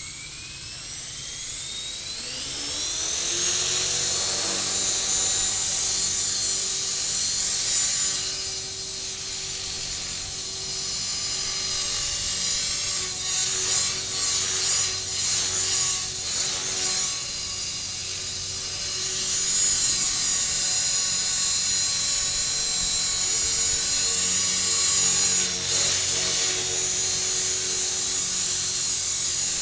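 Tarot 450 Pro electric RC helicopter spooling up, its brushless motor and rotor whine rising in pitch over the first few seconds, then hovering with a steady high whine that wavers in pitch and level every so often.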